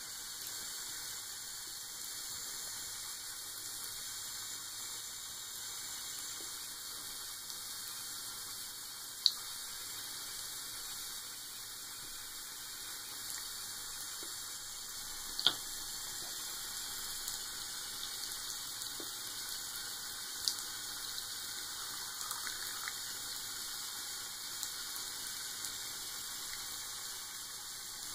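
A thin stream of tap water running steadily from a bathroom faucet into the sink basin, a constant hiss. A few sharp clicks stand out above it, the loudest about halfway through.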